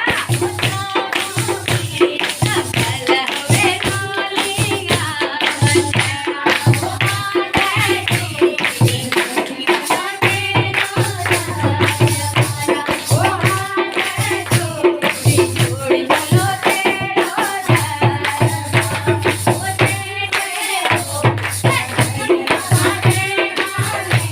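Kumauni devotional bhajan music: a melodic line over a steady, busy jingling percussion beat.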